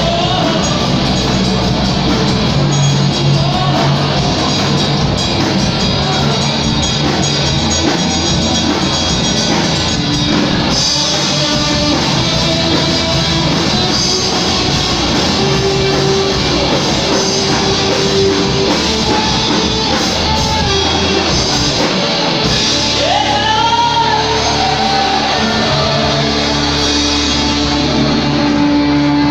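Live rock band playing through a PA: electric guitars, bass and drums, with a singer's voice over them at times.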